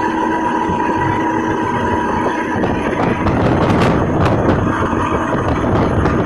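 Road and engine noise inside a moving truck cab, with a steady engine drone for the first couple of seconds. From about three seconds in come repeated short knocks or rattles.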